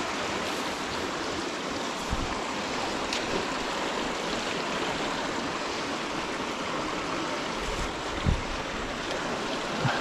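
Mountain stream rushing steadily over rocks. A couple of dull low thumps stand out, one about two seconds in and a louder one near the end.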